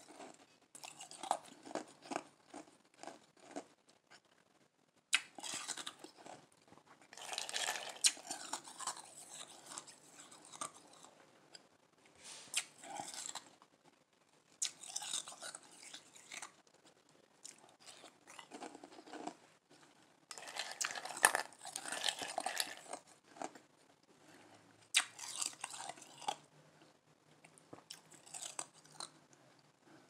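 Soft ice being crunched and chewed close up, in bouts of crackly crunching a few seconds long with short pauses between them.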